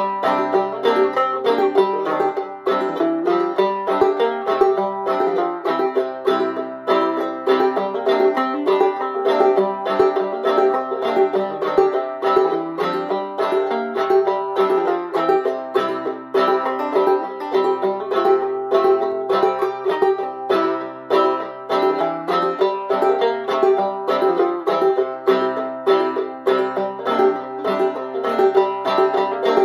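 Open-back banjo played clawhammer style in double C tuning (gCGCD): a steady, even stream of plucked and brushed notes over a ringing high drone note.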